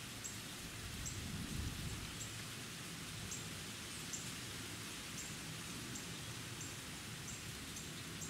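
Quiet woodland ambience: a steady soft hiss with a faint low rumble, and short high-pitched chirps repeating irregularly about once or twice a second.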